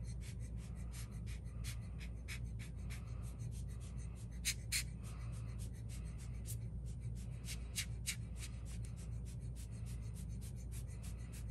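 Rubber hand blower bulb squeezed over and over, giving short puffs and clicks of air about three times a second, unevenly spaced, as it blows wet alcohol ink across the paper. A steady low hum runs underneath.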